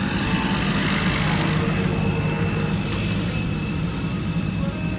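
Aircraft engine running: a steady low rumble with a thin, steady high whine over it, and a rush of noise that swells about a second in and fades.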